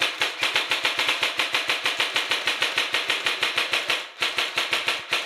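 Airsoft gun firing on full auto: a long string of rapid shots, about a dozen a second, with a brief break about four seconds in before it resumes.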